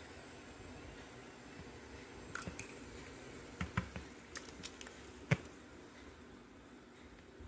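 Steady low hiss of a pot of water with cloves boiling on a gas stove, with a few light clicks and knocks of the pot and its lid from about two seconds in, the sharpest about five seconds in.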